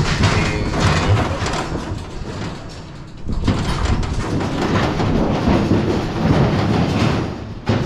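Steel cattle squeeze chute rattling and clanking as a heifer shifts in the headgate, quieter for a moment about three seconds in.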